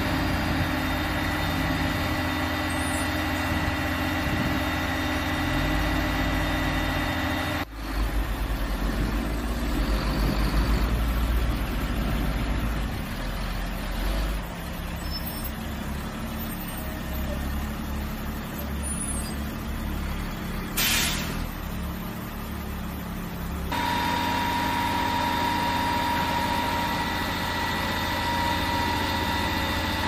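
HIMARS launcher truck's diesel engine running steadily at idle. Its note changes abruptly about a quarter of the way in and again toward the end. A short air-brake hiss comes about two-thirds of the way through.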